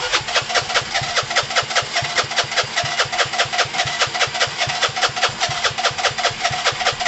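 Gilera DNA 125's single-cylinder four-stroke engine turning over on its electric starter in a fast, even rhythm, cutting off suddenly near the end; a start attempt with the engine not catching.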